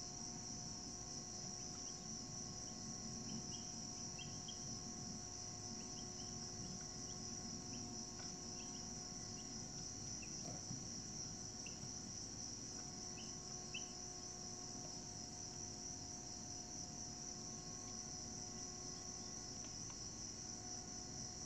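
A steady, high-pitched chorus of crickets trilling without a break, with faint short chirps scattered through it and a faint steady hum underneath.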